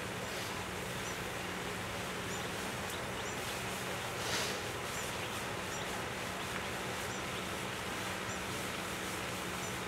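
Steady outdoor background noise with a low hum, scattered with faint, short high chirps from birds or insects, and a brief louder rustle about four seconds in.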